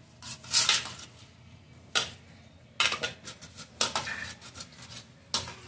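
Palm rubbing over a stainless steel plate to coat it, the plate shifting and clinking on a concrete floor: a few brief swishes and sharp metallic clicks.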